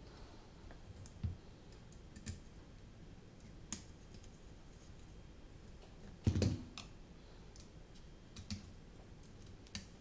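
Scattered light clicks and taps of a carbon-fibre FPV racing drone frame and its parts being handled and set down on a silicone work mat, the loudest a heavier thump about six seconds in.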